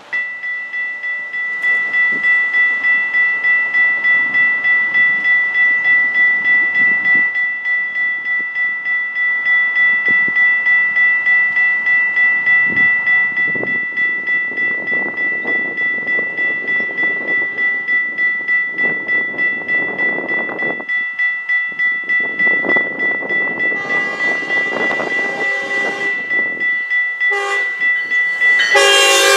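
Grade-crossing warning bell ringing steadily with an even pulse, then the approaching Metrolink commuter train's horn: a long blast, a short one, and another long, louder one as the train arrives near the end.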